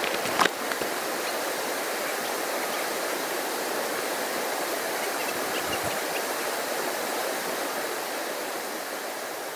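Steady rush of flowing river water, with a brief sharp knock about half a second in.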